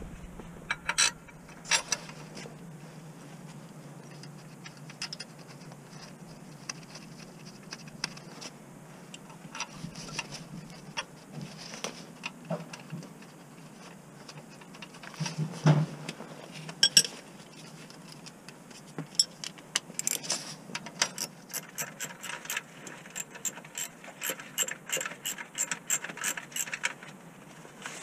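Metal tools clink and knock now and then. From about two-thirds of the way in, a hand ratchet clicks in quick, repeated runs as bolts are worked under the car.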